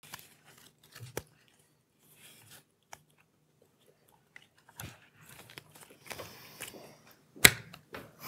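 Quiet handling noise at a board-game table: game cards being sorted in the hand, with scattered light clicks and rustling and one sharper click near the end, over a faint low hum.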